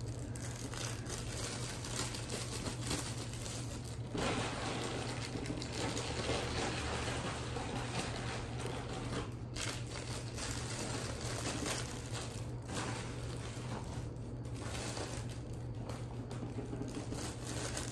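Steady rustling and crinkling of candy wrappers and small plastic treat bags being handled and filled with candy, over a constant low hum.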